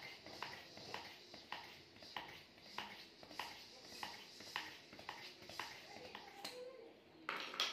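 Hand pump inflating a handball through a needle valve: a steady run of pump strokes, just under two a second, each a click with a puff of air. The strokes stop about six and a half seconds in, and a short, louder rush of noise follows near the end.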